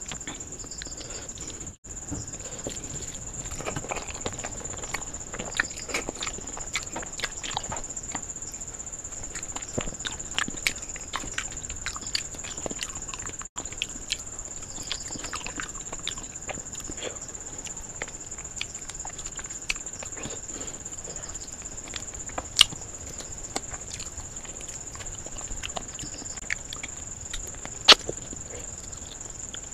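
Close-miked eating sounds: wet chewing, lip smacks and fingers working rice and spicy chicken curry on a steel plate, a string of small clicks and ticks with two sharper clicks late on. A steady high-pitched whine sits behind it.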